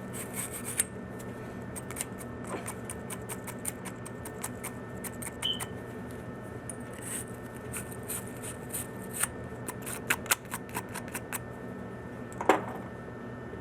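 Copper pipe and fitting being scoured clean before fluxing: intermittent scratchy rubbing and small clicks, with one louder click near the end.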